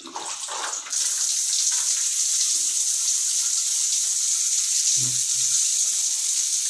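Water spraying from an overhead shower head of a newly fitted wall shower mixer, a steady hiss that comes on about a second in as the mixer's valve is opened.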